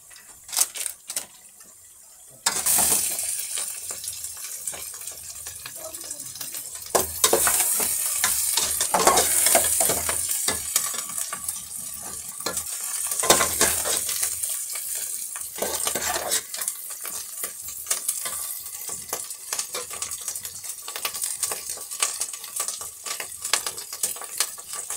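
Pork frying and sizzling in a pan, stirred with a utensil that scrapes and clinks against the metal. The sizzling starts about two and a half seconds in.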